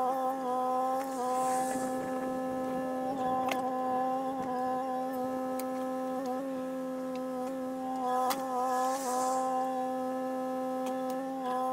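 Kubota KX040-4 mini excavator's diesel engine running steadily at working speed with a whining hydraulic hum that dips briefly as the arm and bucket are worked, while it digs topsoil and loads it into a dump trailer. A couple of sharp knocks are heard, about three and a half and eight seconds in.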